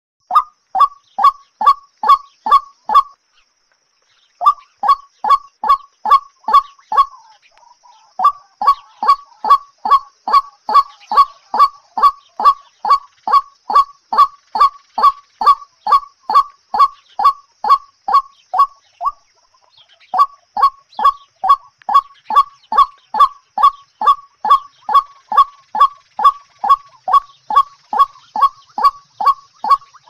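White-breasted waterhen calling: a loud, regular series of short, harsh 'kwak' notes, about two to three a second, broken by three brief pauses.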